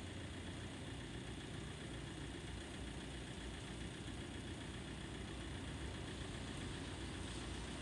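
Faint, steady low rumble of road traffic waiting at the level crossing, with a light hiss above it.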